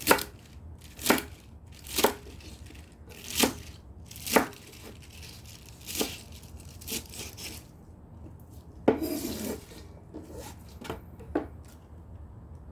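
A Shih Tzu chewing a piece of raw napa cabbage: crisp crunches, roughly one a second and slowing toward the end, with a brief rustling sound about nine seconds in.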